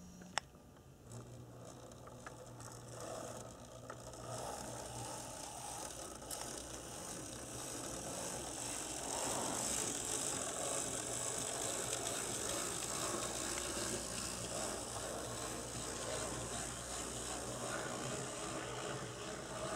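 HO-scale brass 0-6-0 model steam locomotive running along the track, its small motor and gears whirring and clattering over a steady low hum. It gets louder from about four seconds in, with a sharp click just after the start.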